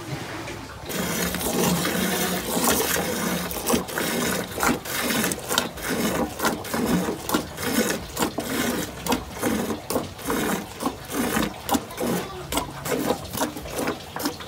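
Cow being milked by hand into a metal basin: alternating squirts of milk hitting the milk in the pail, about two a second, starting about a second in.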